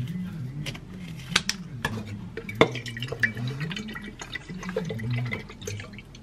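Scissors snipping open a paper carton of almond milk, a few sharp clicks, then the almond milk poured from the carton into a plastic blender cup, a steady splashing stream from about halfway through.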